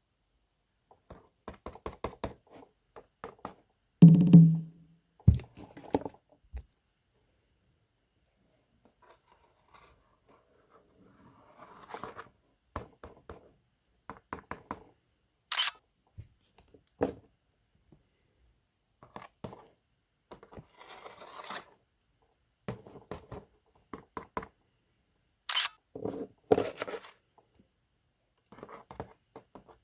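Hands unpacking toy packaging and small plastic figures: scattered clicks, taps and rustles, with one heavier thump about four seconds in and a few sharp clicks later on.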